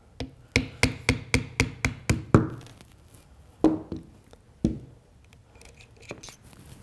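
Nylon-tipped hammer tapping a punch to drive the trigger-group pin out of a pump shotgun's receiver: about nine quick taps, roughly four a second, the last the loudest, then two more taps about a second apart, followed by faint handling clicks.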